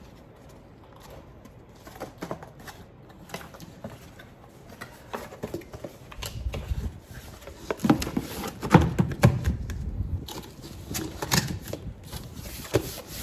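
Irregular clicks, taps and knocks of hands working on a rackmount NAS's metal case and parts, with a louder run of thumps and clatter just past the middle.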